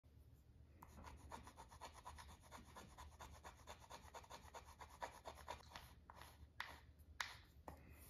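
Faint, quick scratching strokes on a paper poster, about six a second, then three single, louder scrapes near the end.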